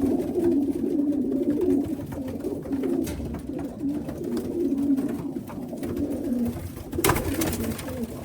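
Racing pigeons cooing continuously in the loft, several low warbling calls overlapping. A short burst of noise about seven seconds in.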